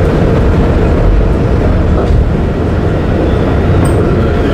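Heritage tram running slowly along street track, heard from inside the car: a steady low rumble of motors and wheels on the rails. A faint high tone comes in near the end.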